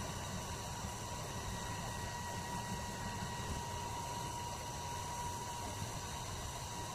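Steady background hiss with a faint, constant high whine and no distinct events: room tone.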